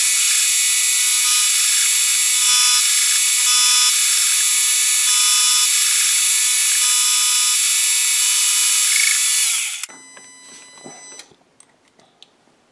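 Milling machine's end mill cutting a metal key blank down to a scribe line: a loud, steady, high-pitched cutting whine with several held tones, which stops about ten seconds in, followed by fainter machine noise and a few light clicks.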